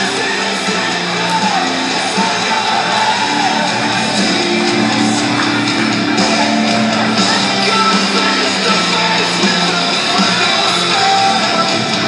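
Loud rock music with singing and guitar, played as a wrestler's entrance theme over the hall's sound system.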